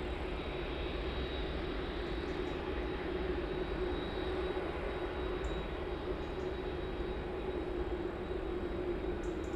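Jet airliner engines, a steady drone with a constant hum that neither rises nor falls.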